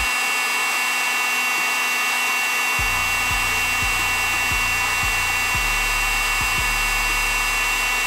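Electric heat gun running steadily on high heat: a constant rushing of air with a steady high-pitched whine from its fan.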